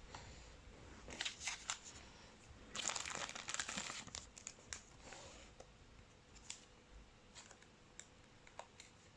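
Foil trading-card pack wrapper crinkling and cards being handled, with scattered light clicks and taps and a louder burst of crinkling about three seconds in.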